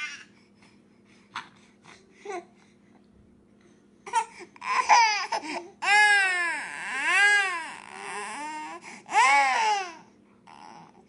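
Baby crying in several long rising-and-falling wails, starting about four seconds in and stopping near the end; the first few seconds hold only a few short small sounds. It is the protest cry of a baby whose twin has taken the pacifier.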